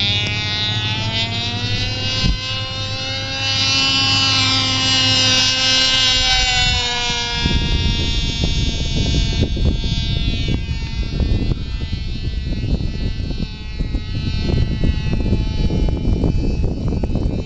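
RC model aerobatic plane's engine running overhead, its pitch rising and falling as it manoeuvres. From about seven seconds in, the engine fades and a low rumbling noise takes over.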